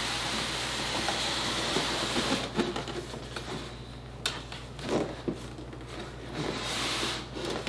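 Styrofoam packing block sliding against the inside of a cardboard box: a steady scraping hiss for about the first two and a half seconds, then scattered creaks and taps, and a second short scrape near the end.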